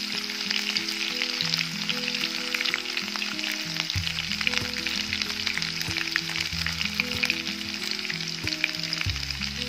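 Sliced onions and green chillies sizzling in hot oil in a wok-like kadai: a steady frying hiss dotted with small crackles.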